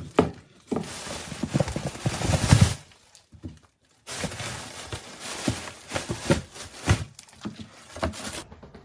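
Vacuum-sealed plastic packs of frozen meat being handled and set down on a tabletop: crinkling plastic with repeated dull thuds and knocks as the hard frozen packs hit the table and each other.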